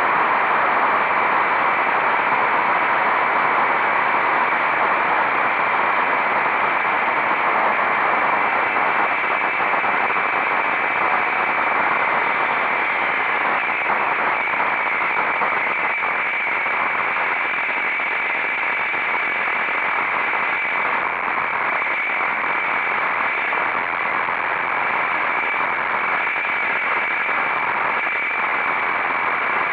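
Steady rushing wind and road noise from a motorcycle ride at speed, easing slightly about halfway through.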